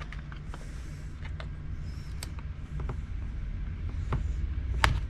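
Small scattered clicks and taps of a plastic laptop case being handled and pried at, with one sharper click near the end, over a low steady hum.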